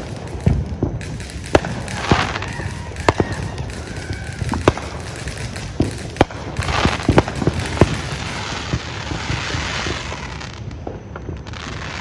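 Fireworks going off all around: many sharp pops and bangs at irregular intervals, with a few seconds of dense crackling hiss past the middle.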